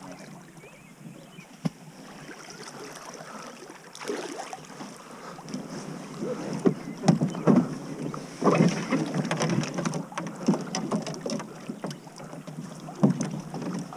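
Kayak paddle strokes splashing in the river, with water slapping against the kayak hull. There is one sharp knock about two seconds in, and the splashing grows busier and more irregular from about four seconds in.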